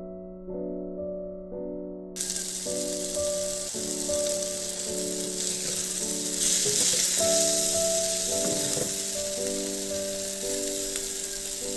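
Small river fish with tomato, onion and chillies stir-frying in an iron wok: a steady sizzle starts about two seconds in and grows louder around the middle, over soft piano background music.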